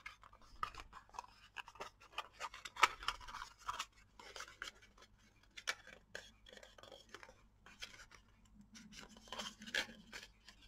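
Stiff cardstock of a pillow box being pressed and rubbed by fingers: faint, irregular scratching and crackling of paper as the glued flaps are pressed down and the curved folds smoothed.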